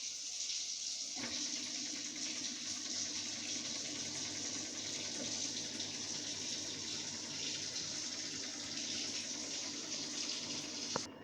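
Microwave oven running: a steady low electrical hum that starts about a second in, over a steady hiss. It stops with a click near the end as the oven is stopped.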